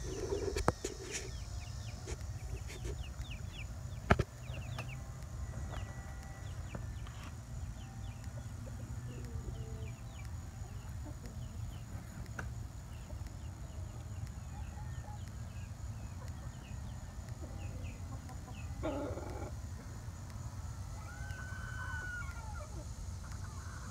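Chickens clucking and calling, with many short high chirps throughout over a steady low rumble. A louder squawk comes about 19 seconds in, and a drawn-out call near the end.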